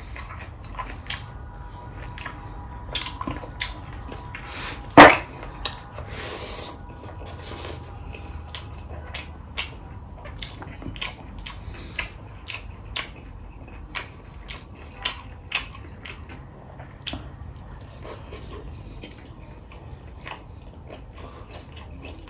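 Close-up mouth sounds of eating rice and chicken curry: chewing with many short wet smacks and clicks, and one much louder sharp smack about five seconds in.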